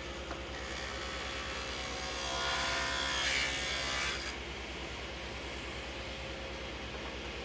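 Table saw running steadily; from about two seconds in its blade cuts a groove (a non-through kerf) along a wooden board, the louder cutting noise stopping suddenly about four seconds in as the board clears the blade.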